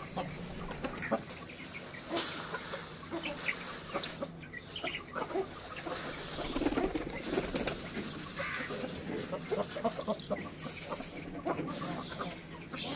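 A plastic bag rustling as pearl millet is poured from it into a steel bowl, with chickens clucking in the background.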